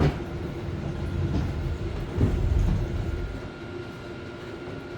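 Rumbling and knocking as a stand-up jet ski is flipped around to its other side, with a knock right at the start and a louder thump a bit over two seconds in. The rumble dies down after about three and a half seconds, leaving a steady hum.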